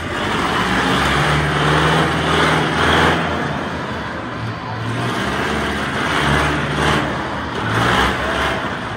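Monster truck's engine revving in several rising and falling surges as the truck climbs over and off a crushed car.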